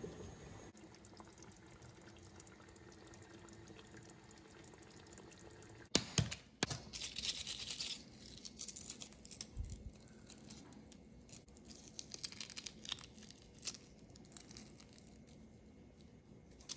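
Faint simmering of a pot of chickpea stew for the first six seconds. Then hard-boiled eggs are tapped sharply on a counter, and the cracked shells crackle and click as they are peeled off by hand.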